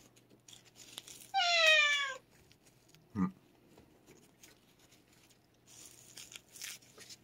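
A domestic cat meowing once: one long meow, falling in pitch, about a second in. A brief low thump follows about two seconds later.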